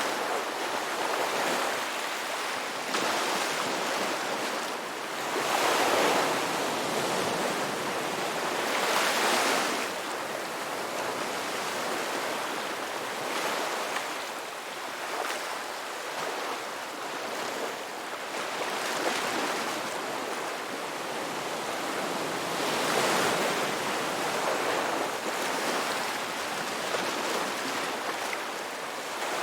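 Ocean waves breaking on a beach, a steady hiss of surf that swells and falls back every few seconds.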